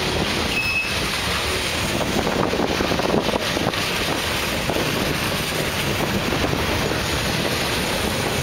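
A Union Pacific freight train's boxcars and refrigerator cars rolling past close by, their steel wheels rumbling and clicking steadily on the rails.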